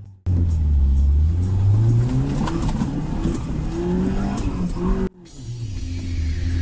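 Suzuki Jimny's engine revving while crawling up a muddy off-road track, its pitch rising and falling over several seconds. The sound cuts off suddenly about five seconds in, followed by a steadier hum.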